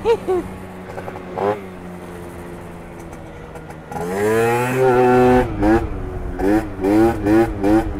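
Yamaha Aerox scooter's two-stroke 70cc-kitted engine: the throttle is shut and it falls to a low idle, with a short blip about a second and a half in. At about four seconds it revs up and holds high, then from about five and a half seconds the throttle is pulsed about twice a second, feathering it to hold a wheelie.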